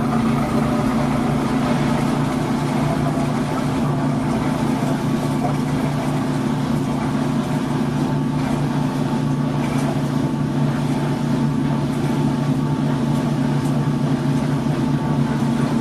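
Maytag top-load washing machine in its spin cycle: the drum spinning with a steady motor hum, with no grinding or squealing, on a newly replaced drain pump and belt.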